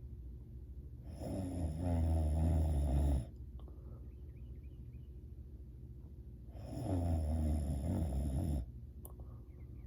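A sleeping person snoring: two long snores about five seconds apart, each lasting about two seconds, with a low fluttering rattle and quiet breathing between them.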